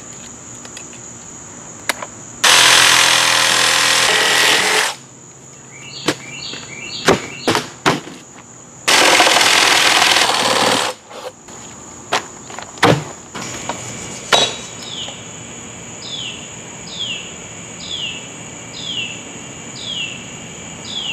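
Handheld power saw cutting through the corner of a wooden concrete form in two loud bursts of about two seconds each, with a few knocks between them. A steady high insect buzz runs underneath throughout.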